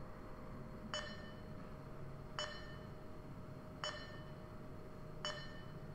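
Coordinate measuring machine taking touch-probe points on a circle under program control, a short ringing ping as each point is taken: four pings about a second and a half apart, over a steady low hum.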